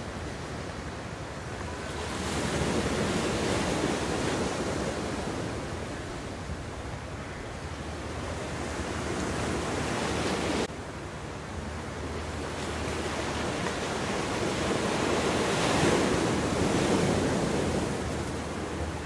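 Sea waves washing and wind rushing over the microphone, an even noise that swells and fades twice, with a sudden drop in level about ten seconds in.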